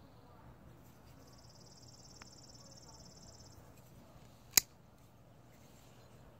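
A flipper folding knife (McGinnis Pro Line Valve) flicked open once about two-thirds of the way in: a single sharp click as the blade swings out on its bearing pivot and locks. Earlier, a high, fast-pulsing buzz runs for a couple of seconds.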